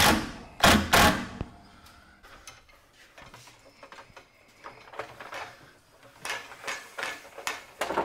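Cordless impact driver running a Torx screw into a heater's mounting bracket in two short bursts in the first second. After that, the hand-cranked winch wheel of a drywall lift being turned, with scattered light clicks and knocks.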